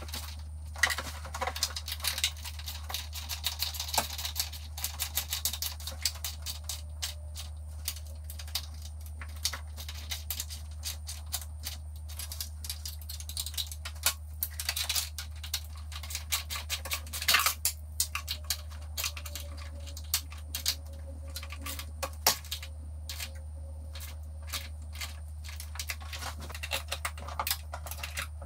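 Hand ratchet clicking in quick, irregular runs while strut tower brace nuts are turned down, with small metal-on-metal clinks of the tool, over a steady low hum.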